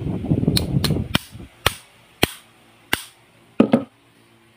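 Sharp metallic clicks and taps of 1911 pistol parts being handled and fitted into the frame during assembly: about six separate clicks spread over a few seconds, then a short rattle of several clicks together. A rough rumbling noise runs under the first second and then stops.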